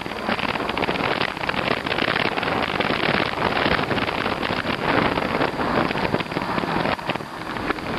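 Riding noise from an e-bike on snowy streets: wind buffeting the microphone over a dense, crackling rush of tyres on snow and slush, easing briefly about seven seconds in.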